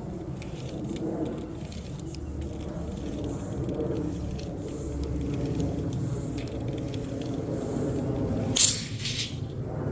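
DeWalt Atomic tape measure blade being slowly run out by hand, with light clicks and rattles from the blade and case over a steady low background rumble. Near the end there is one short, loud scraping swish.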